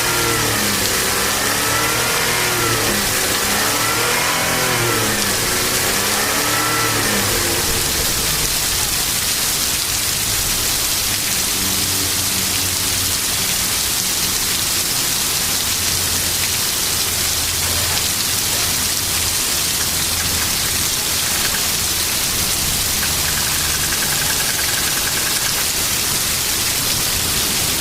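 Heavy rain hissing steadily while a car engine revs up and down repeatedly for the first several seconds, then settles to a steady idle.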